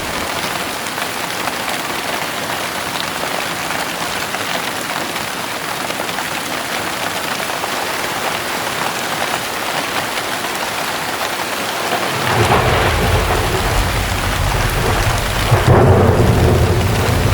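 Heavy rain pouring down steadily. About twelve seconds in, a deep thunder rumble builds and swells again, louder, near the end.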